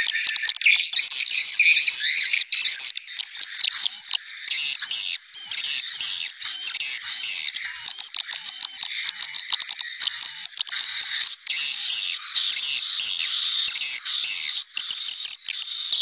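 Swiftlet lure call: a recording of swiftlets chattering and twittering in a dense, high-pitched stream, played to draw the birds into a nesting house. From about four seconds in, a short whistled note recurs roughly once a second over the chatter.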